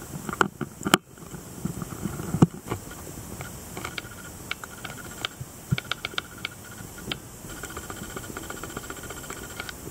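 Underwater ambience heard through a submerged camera: a steady hiss with irregular sharp clicks and crackles, a few loud ones in the first few seconds and a quick run of them about halfway through.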